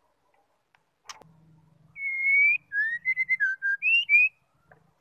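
White-rumped shama (murai batu) whistling a short song phrase: one long, slightly rising note, then a quick run of shorter notes stepping up and down in pitch. A sharp tap comes about a second in, before the song starts.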